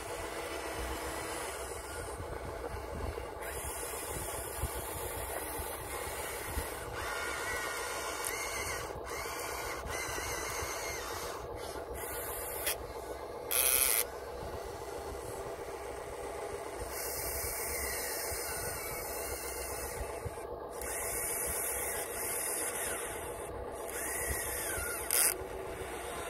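Electric motors of a Huina remote-control excavator whining as it works its arm and swings, the pitch rising and falling as each motor speeds up and slows. Two brief loud bursts of hiss, one about halfway through and one near the end.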